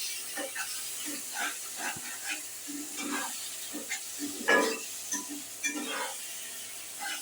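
Spiced curry sizzling in oil in a kadai while a spatula stirs it, with irregular scrapes and knocks against the pan; one louder scrape about four and a half seconds in.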